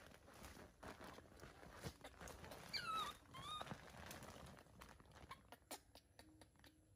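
Hungry baby macaque giving two short squealing calls about three seconds in, the first sliding down in pitch, the second briefly rising. Around them, light clicking and rustling of the monkey handling a plastic basket, a formula tin and a wipes packet.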